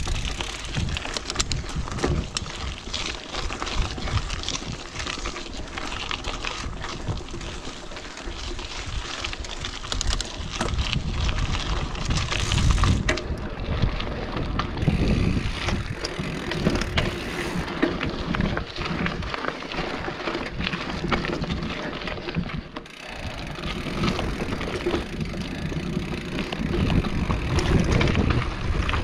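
Mountain bike riding down a rocky dirt trail: knobby tyres rolling over dirt and rock, with the bike knocking and rattling over bumps, and a low rush of wind on the microphone.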